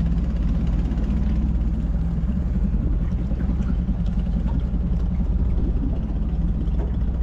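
Engine of a small outrigger fishing boat running steadily under way, an even low drone with no change in speed.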